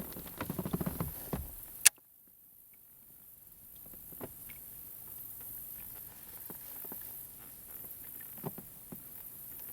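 Light knocks and taps, bunched in the first two seconds and ending in one sharp click; after it the background drops away and only a few faint taps follow.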